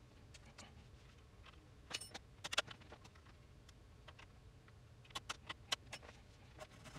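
Sharp clicks of the front-panel switches and knobs on an Akai GXC-709D cassette deck being worked by hand: a cluster about two to two and a half seconds in, and a quick run of four clicks a little after five seconds.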